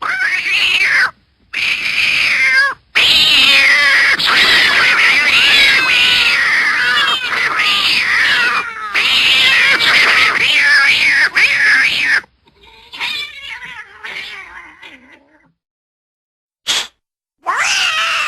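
Cartoon cat meowing sound effect: a string of meows rising and falling in pitch, crowding together and overlapping through the middle, then fading to a quieter stretch, a short silence and a last meow near the end.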